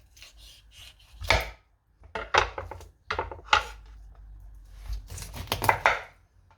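Kitchen knife cutting through raw chicken wing joints and knocking on a chopping board, in four short bursts of sharp knocks and cuts, the last one longest.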